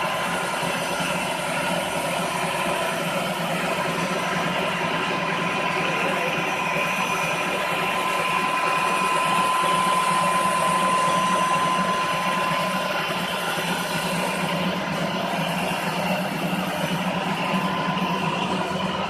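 Concrete floor grinding machine running steadily: a constant motor drone with a steady high whine, slightly louder about halfway through.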